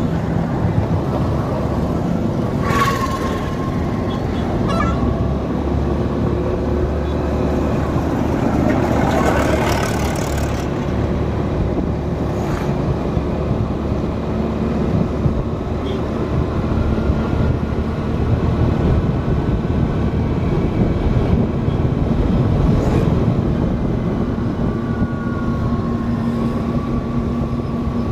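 Steady engine and road noise of a vehicle driving along a highway, with a louder rushing spell about ten seconds in and a few brief thin tones like distant horns.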